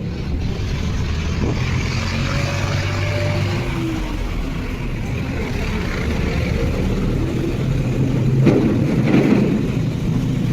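A steady engine-like rumble with a low hum, swelling briefly about eight and a half seconds in.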